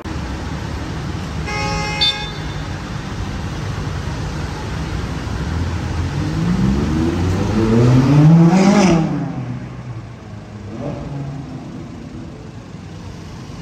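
A vehicle horn gives a short toot about two seconds in, over steady city traffic. Then, from about six seconds in, the McLaren 620R's twin-turbo V8 revs up in a rising pitch as it accelerates, loudest near nine seconds before falling away, with a smaller rev shortly after.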